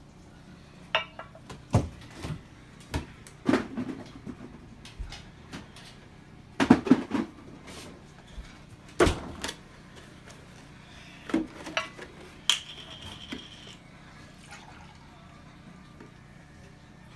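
Kitchen handling noise: cupboard doors, a drinking glass and dishes being knocked and set down in a string of sharp knocks and clatters. One clink rings briefly about twelve and a half seconds in, and the last few seconds are quieter.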